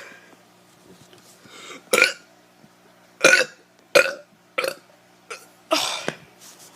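A teenager burping deliberately: about six short burps in quick succession, the last one longer.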